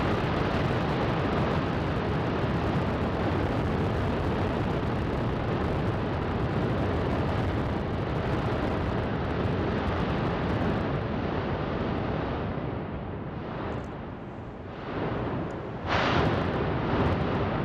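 Volcanic eruption sound effect: a dense, steady rumbling noise that eases off and dips a little after twelve seconds in, then a sudden loud blast about sixteen seconds in, followed by further surges.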